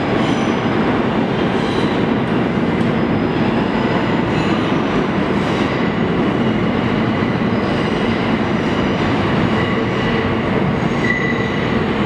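Siemens-propulsion R160B New York City subway train pulling out of the station and running into the tunnel: a steady, loud rumble of wheels on rail, with faint thin high tones above it.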